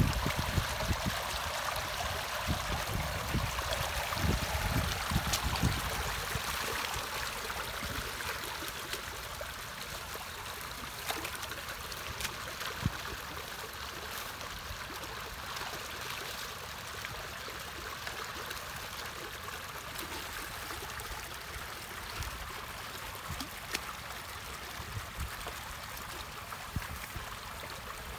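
Muddy water flowing steadily along a narrow ditch out of a culvert, with a few small knocks and splashes scattered through it as a person wades in the flow and pulls at debris.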